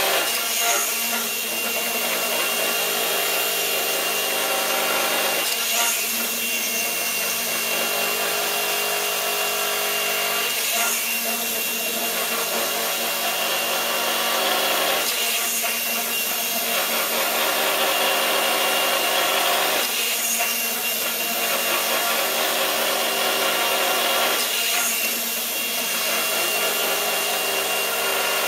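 Gyroscopic inertial thruster running, its spinning gyros and drive motors giving a steady mechanical whir with a surge of noise about every five seconds as it runs its propulsion cycles, once per pendulum swing.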